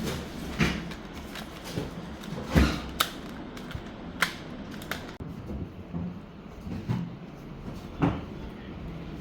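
Irregular sharp clicks and knocks, about six in all, the loudest about two and a half seconds in, over a low background.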